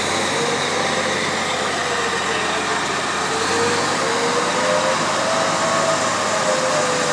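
Very big truck driving off under engine power: a steady running noise with a whining tone that wavers up and down in pitch.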